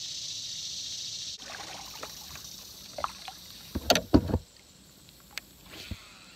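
Clicks and knocks of fishing gear being handled in a kayak, with a pair of heavy thumps about four seconds in. A steady high hiss runs for the first second and a half and then cuts off.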